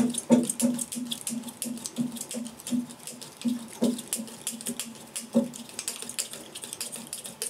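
Bowstring serving tool being wrapped around the string, thread pulling and rubbing with light rhythmic ticks about three times a second, thinning out in the second half.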